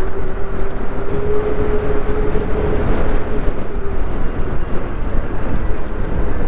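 Wind rushing over the microphone of a rider on a moving electric bike, a steady low roar, with a faint steady whine that fades out about four seconds in.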